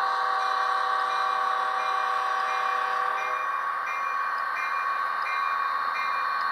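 A Rapido F40PH model locomotive's onboard sound playing a diesel locomotive horn over its steady engine sound. The horn holds one long blast and stops about halfway. A bell then strikes about every 0.7 seconds.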